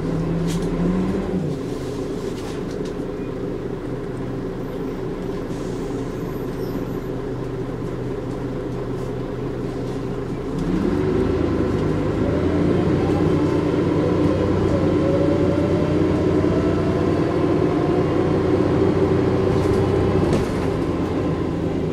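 Volvo Olympian double-decker bus's turbocharged diesel engine running. About ten seconds in it pulls harder and the turbo whistle rises in pitch, then holds steady until the engine eases off near the end.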